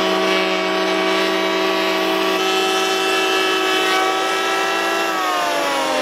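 Electric beam planer running as it is pushed along a timber beam, a steady high whine. About five seconds in the whine starts to fall in pitch as the motor slows.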